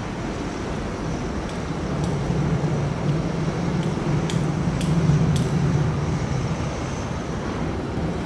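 A low engine drone that swells about two seconds in, peaks around five seconds and eases off, over steady outdoor noise, with a few short high-pitched clicks.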